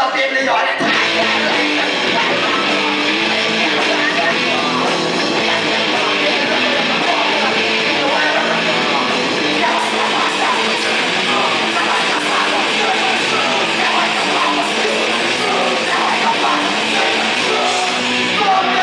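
Live rock band playing loud and unbroken, electric guitar to the fore, with a singer on the microphone.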